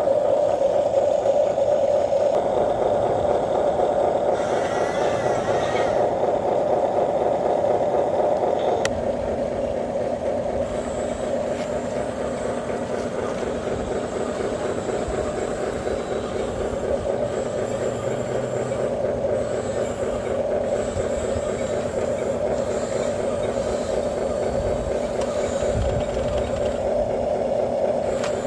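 Radio-controlled truck running, its electric drive giving a steady mechanical whine with a fast, fine pulse; the tone shifts slightly about nine seconds in.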